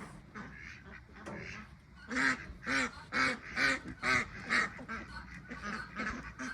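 Farmyard waterfowl calling: a run of about six short, pitched calls, about two a second, from about two seconds in to near the middle of the stretch.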